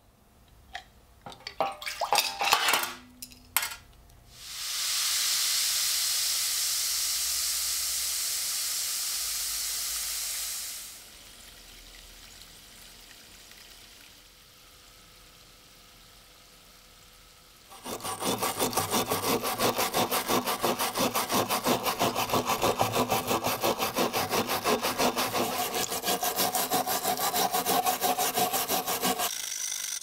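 A few clinks of metal knife parts, a steady hiss lasting several seconds, then a stiff brush scrubbing a rusty switchblade part in a tray of soapy liquid with rapid back-and-forth strokes for about ten seconds, the loudest sound, which stops shortly before the end.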